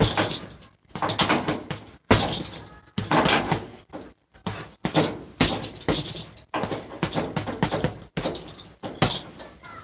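Boxing gloves hitting a hanging heavy punching bag in repeated, uneven flurries of thuds.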